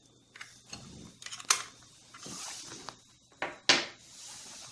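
Hands working on the metal parts of an espresso grinder: a few sharp clicks and knocks, with short stretches of soft scraping in between.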